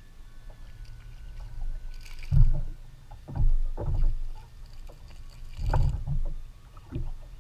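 Knocks and thumps on a fishing kayak, about six irregular low bumps, two of them with a brief splashy hiss, over a low steady rumble.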